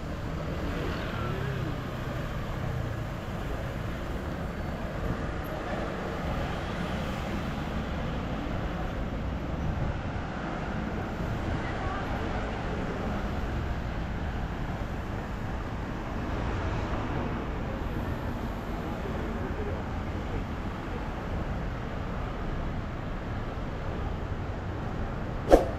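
Busy city street ambience: steady road traffic with indistinct voices of passers-by, and a single sharp click just before the end.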